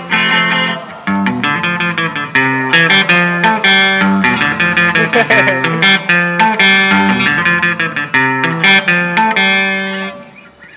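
Cherry-red SG-style solid-body electric guitar played fast with a pick, quick runs of single notes mixed with chords. The playing stops shortly before the end.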